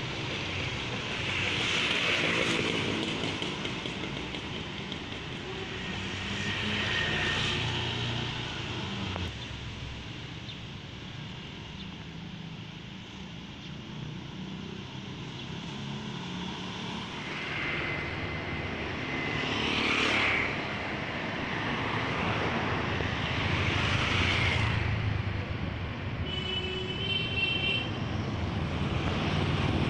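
Street traffic: motorcycles and cars pass one after another over a steady low engine rumble, each pass rising and falling away, with a short high tone near the end.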